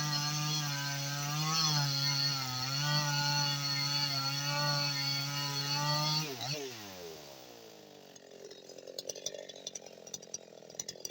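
Stock Husqvarna 55 Rancher two-stroke chainsaw running at full throttle in a cut through hard eucalyptus, its pitch dipping slightly under load twice. About six seconds in the throttle is released and the revs fall away quickly, leaving a much quieter stretch with scattered light ticks.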